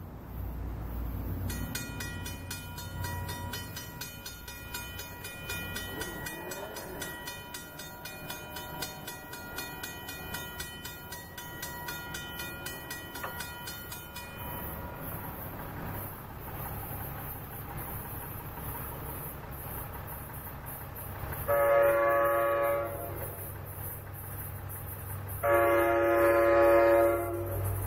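Grade-crossing signal bell ringing rapidly while the gate lowers, stopping about halfway through. Then the horn of the approaching NJ Transit GP40PH-2 diesel locomotive sounds two long blasts, the opening of the grade-crossing signal.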